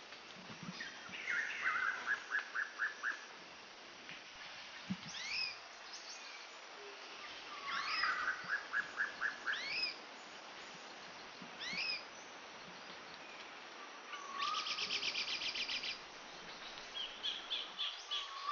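Small birds singing: repeated short upward-sweeping whistles and quick rhythmic trills, with a faster, buzzier trill about fifteen seconds in, over a faint steady hiss.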